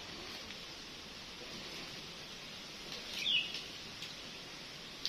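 A bird gives one short, falling call a little over three seconds in, over a steady high outdoor hiss.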